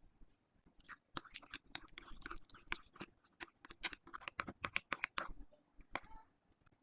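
Slime being squeezed and pressed by hand, giving a rapid run of small clicks and pops that starts about a second in and stops near the end.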